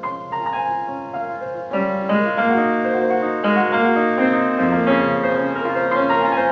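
Background piano music, several notes sounding together, growing louder about two seconds in.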